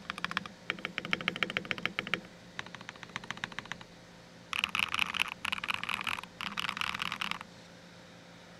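Fast typing on an FL CMMK MK870 mechanical keyboard with Gateron Smoothie Silver linear switches, tape-modded and PE-foamed, under Akko ASA keycaps: quick runs of keystrokes, then about four and a half seconds in three denser, louder bursts of rapid presses that stop about three seconds later. A faint steady hum sits underneath.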